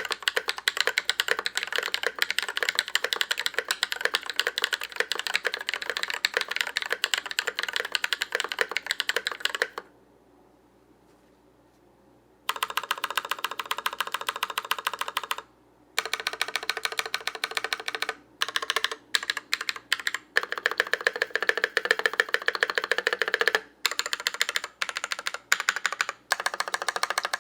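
Mechanical keyboard with lubed Glorious Panda tactile switches in a stock case and plate, typed on fast and steadily for about ten seconds. After a short pause come bursts of rapid repeated presses on the stabilized keys, whose plate-mount stabilizers are lubed with Krytox 205g0.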